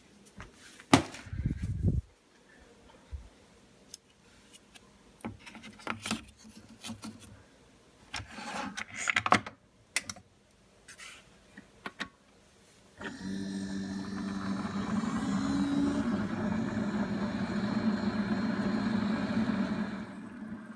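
Single-serve K-cup coffee brewer being handled, with scattered clicks and knocks as the pod goes in and the machine is worked. About thirteen seconds in, the brewer starts brewing: a steady hum with a hiss that runs for about seven seconds and stops just before the end.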